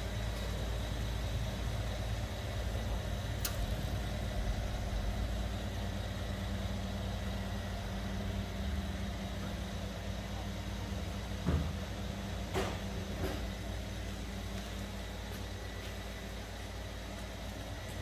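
Rolls-Royce Dawn's twin-turbo V12 idling steadily, a low even hum. A few brief clicks or knocks come through it, one early and a cluster a little past the middle.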